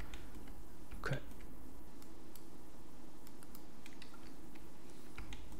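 Sparse clicks of a computer mouse and keyboard being operated, with one louder tap about a second in, over a steady low hum.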